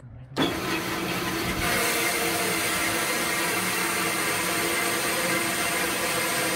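Band saw switched on about half a second in, its motor and blade running with a steady whine; from about a second and a half in the noise grows louder and brighter as the blade cuts through an aerated concrete (Porenbeton) block.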